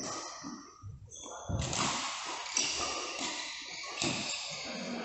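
Badminton play: a few sharp racket strikes on the shuttlecock, roughly a second apart.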